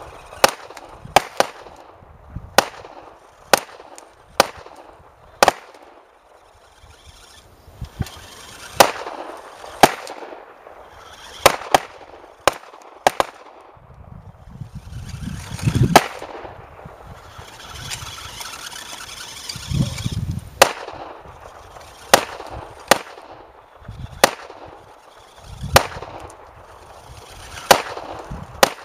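Sharp gunshot-like cracks fired one at a time or in quick pairs at irregular intervals, about twenty in all, with low rumbling swells between some of them.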